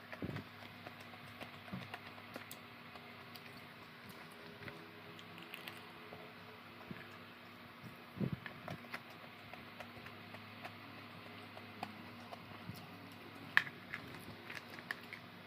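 Eating sounds: scattered small clicks and taps of chewing and of food being handled on a plate, over the steady hum of an electric fan. A sharper click a little after two-thirds of the way through is the loudest.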